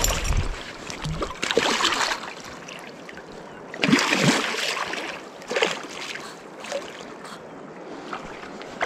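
Irregular bursts of water splashing, three or four louder ones, over a steady rush of river water.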